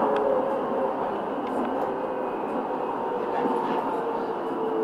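Steady running noise of an R2.2 low-floor tram in motion: wheels rolling on the rails with its running gear, and a few faint tones that shift slightly in pitch.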